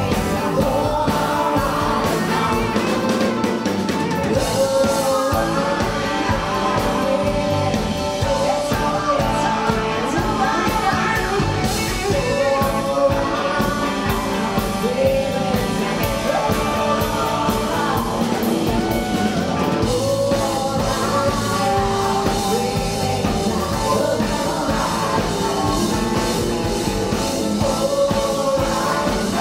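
Live country band playing a song: a woman sings lead over fiddle and electric and acoustic guitars.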